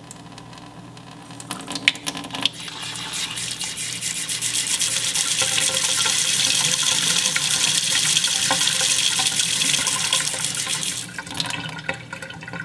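Water from a single-handle pull-out kitchen faucet running into a stainless steel sink basin. It is turned on about two seconds in, swells to a steady splashing stream, and is shut off near the end.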